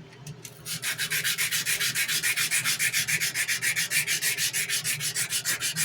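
Sandpaper rubbed back and forth by hand on a steel knife blade's hollow grind, in fast, even strokes of about seven a second, starting just under a second in.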